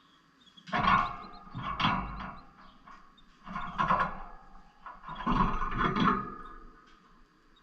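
Pet lovebirds close to the microphone: four loud bursts of rough, noisy sound with a low rumble, each under a second to about a second and a half long and spaced about a second apart.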